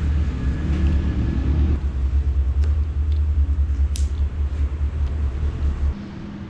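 A motor running with a low, pulsing hum that cuts off about six seconds in, with a short sharp tick about four seconds in.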